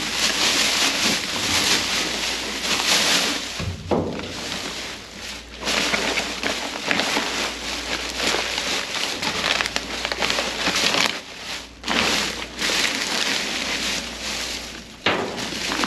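Plastic garbage bags and paper trash rustling and crinkling as gloved hands dig through them, close to the microphone, with a few brief pauses.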